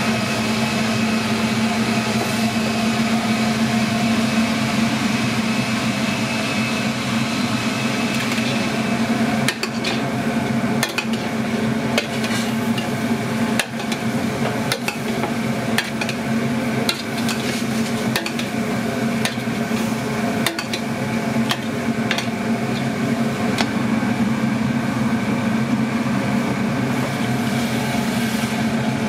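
A steady kitchen machine hum runs throughout. From about a third of the way in, a metal ladle clinks and knocks against a stainless steel stock pot as chicken pieces are stirred and tipped into it.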